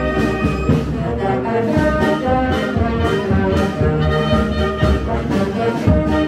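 A marching wind band plays a tune as it walks. Clarinets and flutes sound with brass over a steady beat.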